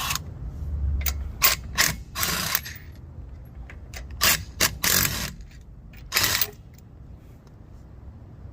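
Diehard 20V cordless 1/2-inch impact wrench run in about eight short bursts of hammering rattle, two of them about half a second long, over the first six seconds or so.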